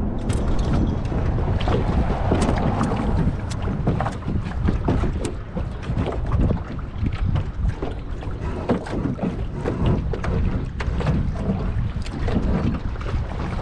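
Wind buffeting the microphone in a steady low rumble, with water slapping against a boat hull in many short knocks.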